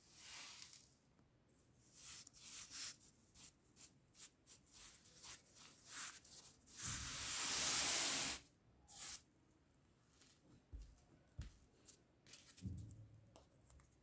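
Kinetic sand being worked by hand or tool: a run of short, grainy, hissing scrapes and crumbles, with one longer, louder scrape a little past halfway, then a few soft thuds near the end.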